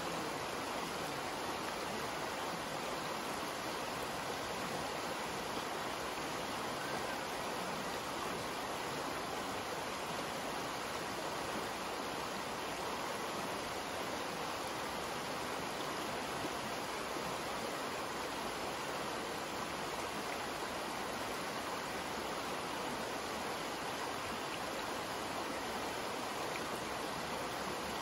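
Shallow creek water rushing steadily over a rocky bed in riffles, running high after recent heavy rains.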